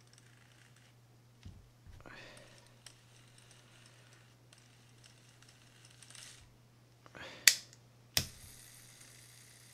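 Light clicks and handling noise from a Shimano Citica 200D baitcasting reel being worked on as it is put back together and its handle turned, with two sharp clicks near the end.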